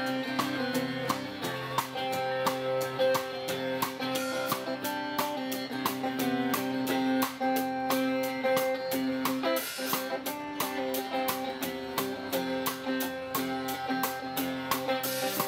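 Instrumental break in a song: held chords over a steady beat, with no singing.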